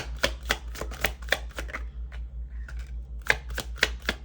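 Tarot deck being shuffled by hand: a run of short card clicks, about four a second, that pauses for about a second past the middle and then starts again.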